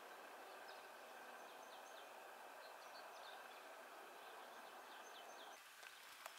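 Near silence: a steady faint background hiss with scattered faint, short, high bird chirps. A faint click comes near the end.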